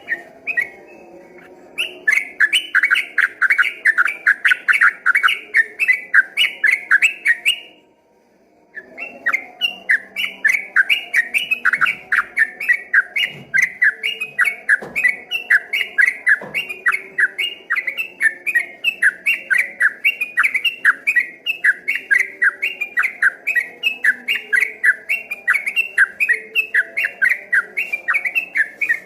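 Yellow-vented bulbul (trucukan) singing its fast rolling 'ropel' song: a long string of bright, quickly repeated notes, about four a second. The song breaks off for about a second a quarter of the way in, then runs on unbroken.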